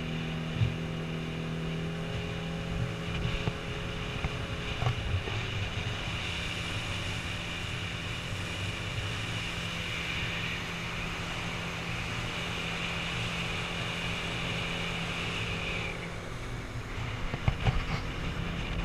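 Small fishing boat's engine running steadily under way, a constant hum with a higher whine over it. Near the end the whine drops away and there are a few brief thumps.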